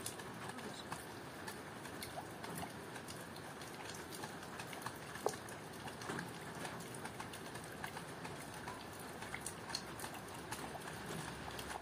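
Boiled chicken being pulled apart by hand: soft wet tearing and many small clicks, one sharper click about five seconds in, over a steady soft hiss.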